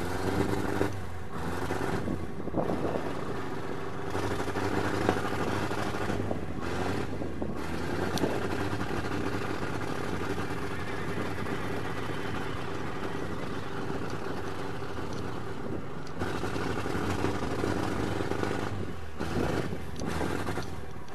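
A motor running steadily with an even hum.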